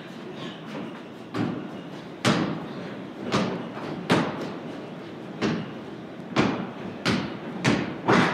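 Basketball bouncing on a wooden plank floor, a run of sharp thuds at an uneven dribbling pace, each with a ringing echo from the large wooden loft.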